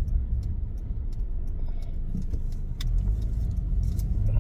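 Steady low rumble of a car being driven, engine and tyre noise heard from inside the cabin, with a few light ticks and rattles scattered through it.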